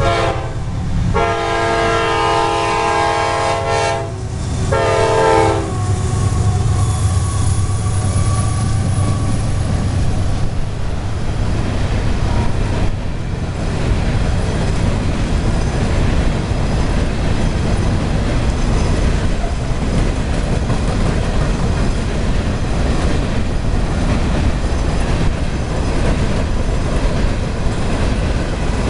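CSX freight locomotive's air horn sounding a long blast and then a shorter one as it reaches the grade crossing. The train then rumbles steadily across as its hopper cars roll by, with wheels clicking over the rail joints.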